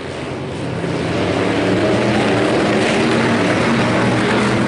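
A pack of IMCA Hobby Stock race cars running at speed on a dirt oval, several engines overlapping. The sound grows louder over the first two seconds as the cars come closer, then holds steady.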